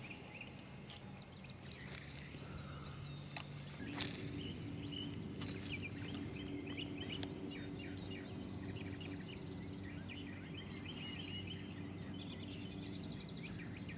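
Quiet lakeside ambience: small birds chirping over a steady low engine hum, which changes pitch about four seconds in, with a few faint clicks.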